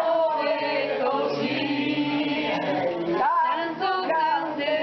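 A group of older men and women singing a folk song together, unaccompanied, in mixed voices.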